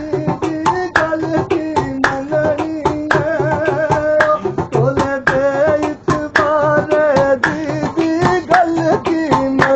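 Singing with percussion: one voice carrying a wavering, ornamented melody over sharp drum or hand strikes coming several times a second.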